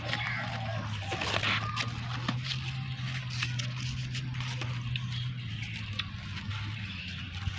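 Salak (snake fruit) being peeled by hand: scattered small cracks and crackles as the scaly rind breaks away, over a steady low hum.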